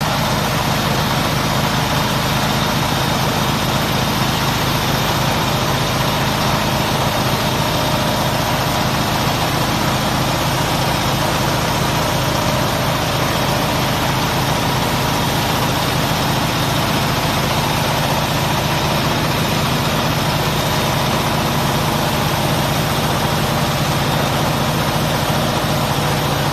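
Horizontal band sawmill running: a steady, unchanging machine noise with a low hum under it.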